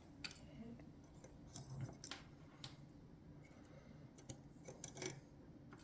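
Small metal parts of a Chubb GPO No.6 lever lock being handled during disassembly: faint, scattered clicks and taps, about half a dozen sharp ones across the few seconds.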